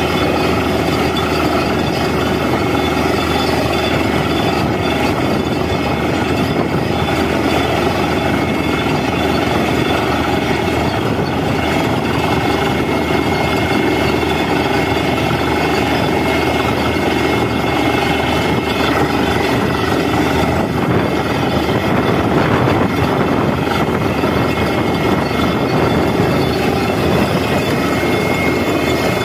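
Borewell drilling rig running at full work with a loud, steady machine noise, while a mix of water and rock cuttings gushes out of the hole around the drill pipe: the bore has struck water.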